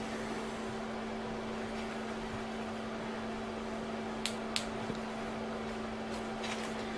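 Steady room hum from a running motor or appliance, with two short sharp clicks close together a little after four seconds in.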